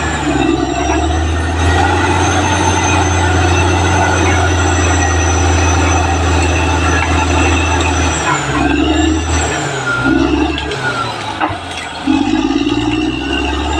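Caterpillar D6R XL bulldozer's diesel engine running hard, with high, sustained squealing from its steel crawler tracks. The engine note drops and falters about eight seconds in, then comes back at full level about four seconds later.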